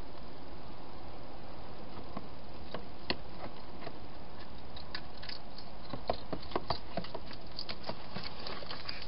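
Wild hedgehog eating at bowls inside a plastic feeding box: scattered small clicks and crunches, thickest from about six seconds in, over a steady hiss.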